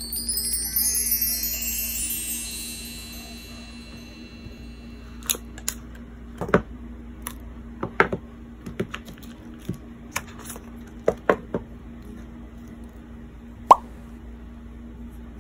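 A glissando of chimes, ringing down from high to low and fading out over about four seconds. Then a scattering of light, sharp clicks and taps.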